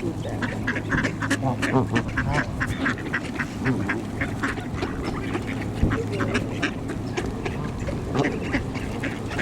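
A flock of ducks quacking continually, many short calls overlapping one another.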